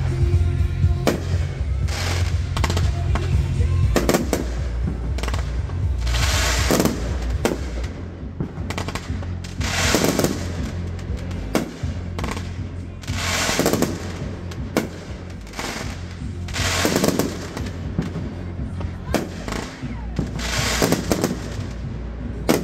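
Fireworks display: a rapid run of aerial shell bangs, with bigger, longer bursts about every three to four seconds.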